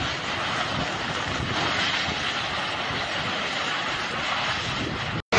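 Tornado wind rushing as a steady, even noise with no distinct tones; it cuts out for a moment near the end.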